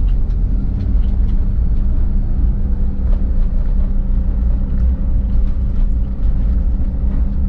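Steady low rumble of a car's engine and tyres on a patched paved street, heard from inside the cabin, with a faint steady whine.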